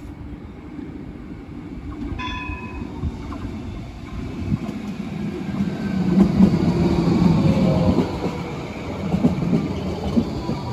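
Adelaide Metro Bombardier Flexity Classic tram approaching and passing close by: its wheels rumble on the rails, louder and louder, and are loudest from about six seconds in. A short high tone sounds about two seconds in. Near the end a faint whine slides down in pitch as the tram goes past.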